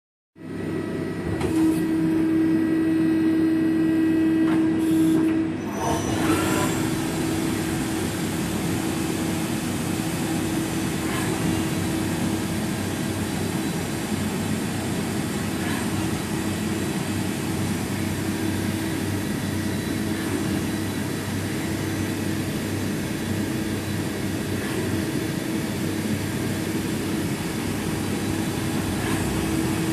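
Okuma Howa CNC lathe running, a steady mechanical hum with a constant whine; about six seconds in the sound dips briefly, then settles back to steady running.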